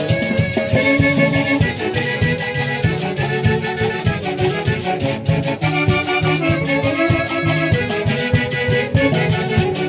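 Live Peruvian folk-dance music from a traditional orchestra: a melody of held notes over a steady, driving beat.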